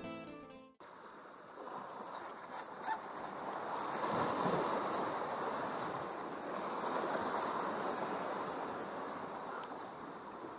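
Ocean surf washing against the rocks of a harbor jetty, a steady rushing with some wind on the microphone, after guitar music cuts off about a second in.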